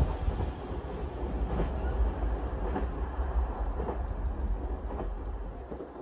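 A train's rumble on the rails, slowly fading as it moves away, with a few faint knocks of wheels on the track.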